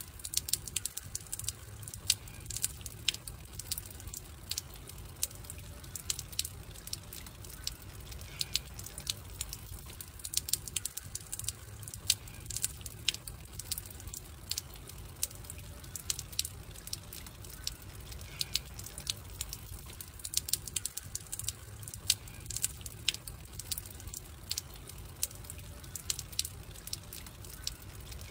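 Wood fire crackling: irregular sharp pops and snaps over a steady low rumble, in a recording that repeats about every ten seconds.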